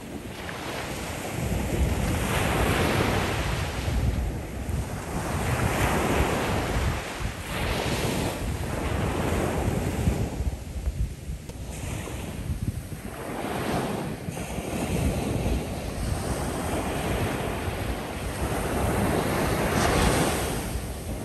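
Ocean waves breaking and washing up onto a sandy shoreline in repeated surges a couple of seconds apart, each swelling and then fading, over a steady low rumble of surf.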